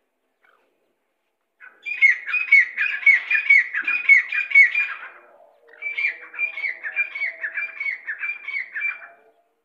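Grey francolin calling: two bouts of rapid, evenly repeated high notes, each note sliding down, about four a second. The first bout starts about a second and a half in, and the second follows after a short pause.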